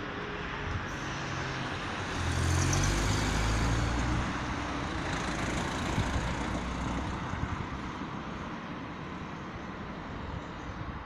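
A car driving past close by on the road, its tyre and engine noise swelling to a peak a couple of seconds in and fading away over the next few seconds, over a steady hum of road traffic.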